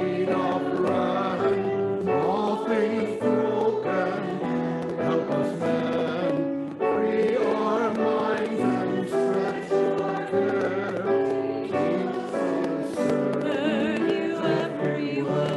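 A group of voices singing a hymn, holding long notes.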